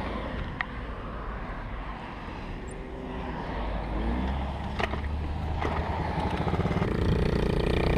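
A 1970 Honda Z50A minibike's small single-cylinder four-stroke engine runs as the bike pulls away under way, getting steadily louder as it picks up speed, with a couple of rising revs a few seconds in.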